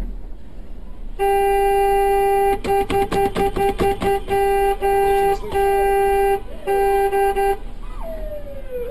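A car horn honking loudly: a long blast about a second in, a quick run of short taps, then several more long blasts. An ambulance siren wails up and down faintly underneath.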